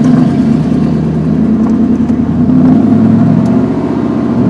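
1999 Ford F-150 pickup's engine running steadily.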